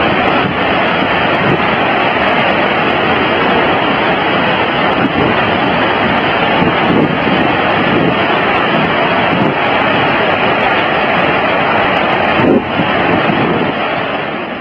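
Loud, steady rushing roar of floodwater, fading out at the end.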